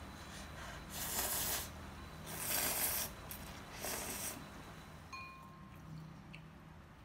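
Three short breathy bursts of mouth noise as a person eats noodles from chopsticks, then a light clink with a brief ring from a ceramic bowl about five seconds in.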